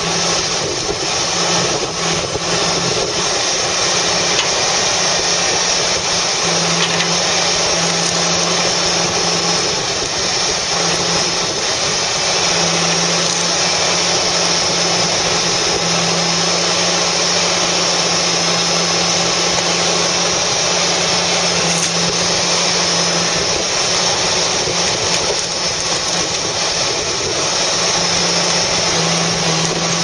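Ponsse forwarder with a Fiberpac 370 brash baler running: a steady, loud din of diesel engine and hydraulics, with a low hum that comes and goes every few seconds as the load changes.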